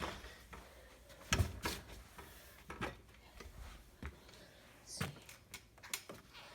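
A few scattered sharp knocks and clicks, the clearest pair about a second and a half in and another near five seconds, over a faint low hum.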